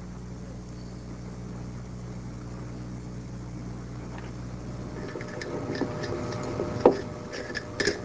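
A steady low hum, then from about five seconds in a string of light clicks and taps, with a faint ringing, as seeds are put into glass quart canning jars.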